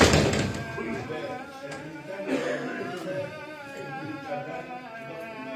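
A man's voice chanting a slow, melodic recitation with long held, wavering notes, typical of a chanted religious recitation in a mosque. A loud, short burst of noise comes right at the start.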